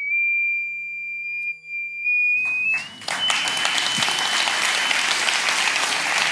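A frequency generator's pure sine tone, driving a metal Chladni plate through a sound driver, rises slowly in pitch. About two and a half seconds in, audience applause breaks out, while the tone steps higher and then fades under it.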